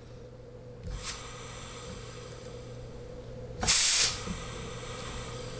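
Compressed air from a blow-gun nozzle hissing into the second-gear servo port of a 4L60E automatic transmission's air test plate: a short hiss about a second in, then a louder half-second blast about four seconds in, over a faint steady hum. It is an air check of the second-gear apply circuit, which the builder judges perfect.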